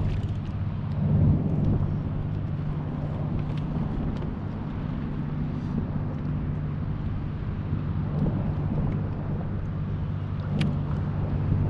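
Steady low engine hum, as from a motor running, with wind buffeting the microphone and a brief click near the end.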